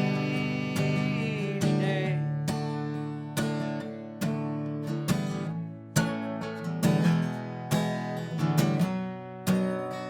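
Acoustic guitar strumming chords that ring out and fade, roughly one strum a second, coming more often in the second half.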